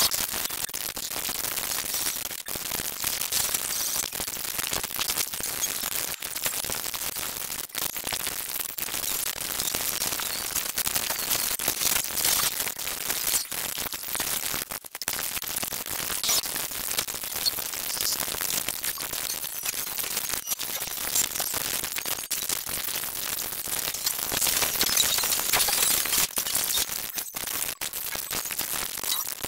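A cartoon soundtrack of dialogue, music and effects played back at an enormously sped-up rate, turned into a dense, high-pitched crackling hiss like static, with brief dropouts here and there.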